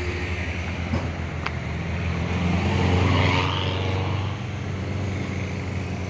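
Truck engine running steadily while driving, with road and wind noise, heard from the open cargo bed; it swells louder about three seconds in.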